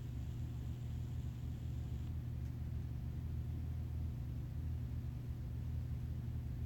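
Steady low hum with faint hiss; no distinct events.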